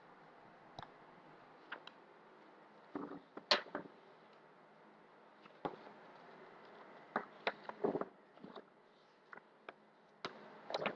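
Quiet room tone with a scattering of faint, brief clicks and taps, about a dozen, the sharpest about three and a half seconds in and a small cluster around eight seconds.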